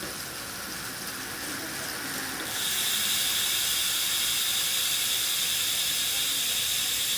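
Hope Pro 4 rear hub freewheeling, its four pawls ratcheting so fast that the clicks run together into a steady buzz. About two and a half seconds in it turns suddenly louder and higher.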